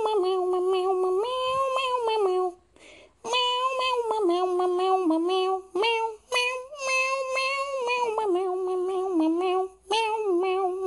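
A single voice humming a simple melody as mouth-made background music, stepping between a few held notes, with brief breaks about 2.5 s, 5.5 s and 10 s in.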